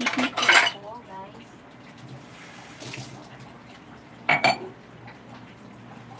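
Dishes and utensils clattering at a kitchen sink, once in the first moment and again about four seconds in, with faint running tap water between.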